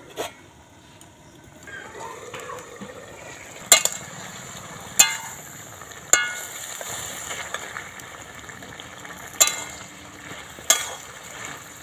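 Vegetable and prawn curry simmering and sizzling in a metal wok, a steady hiss that sets in after a quiet first two seconds. About five sharp metallic clinks against the wok are spread through it.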